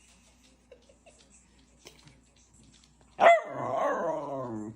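A dog's long, drawn-out howling whine that starts sharply about three seconds in and falls in pitch over about a second and a half, after a few faint clicks.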